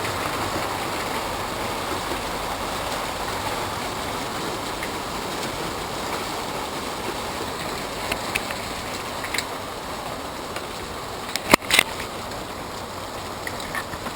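Hail coming down as a steady hiss, with scattered sharp clicks of hailstones striking a hard surface through the second half and two loud cracks a couple of seconds before the end.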